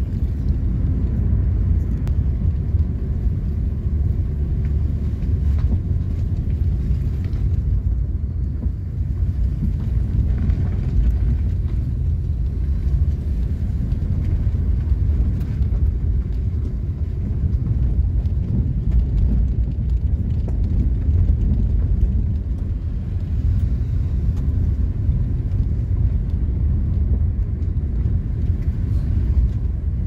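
Vehicle driving on a rough dirt road, heard from inside the cabin: a steady low rumble of engine and tyre noise.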